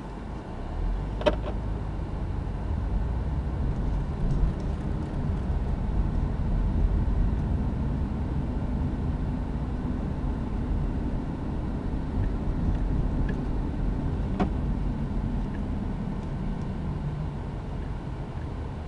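A car's engine and road noise heard from inside the cabin as it pulls away from a stop and drives on: a steady low rumble. Two short sharp clicks stand out, one about a second in and one near the end.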